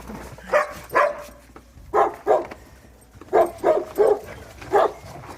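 Dog barking repeatedly: about eight short, sharp barks in quick pairs and threes.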